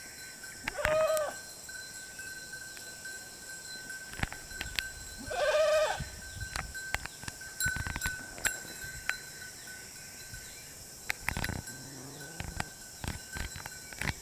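Goats bleating twice, a short bleat about a second in and a longer one midway, amid scattered clicks and knocks and a steady high-pitched tone.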